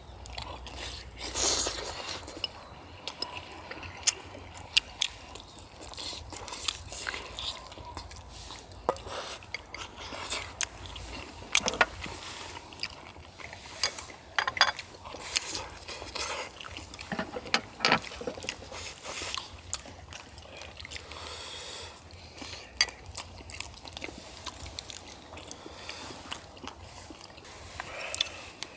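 Close-up eating sounds of several people eating chewy baby octopus and chicken in a spicy sauce: wet chewing and slurping, with many short sharp clicks scattered throughout.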